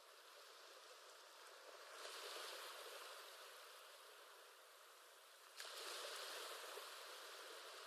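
Faint ocean-wave background track: an even hiss of surf that swells about two seconds in, eases, then rises again abruptly shortly before six seconds.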